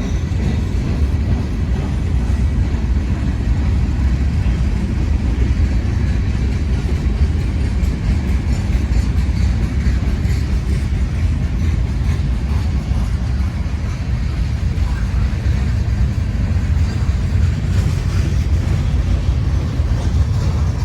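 Freight trains rolling past at steady speed: a continuous low rumble of wheels on rail from a manifest of empty gondolas, with an intermodal train passing on the adjacent track.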